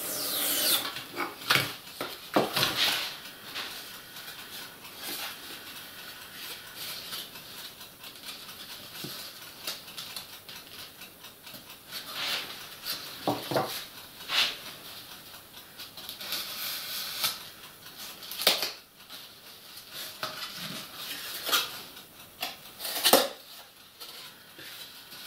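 Polystyrene foam board being cut with a knife and handled: intermittent scraping, rubbing and squeaking of foam, with a few sharp taps.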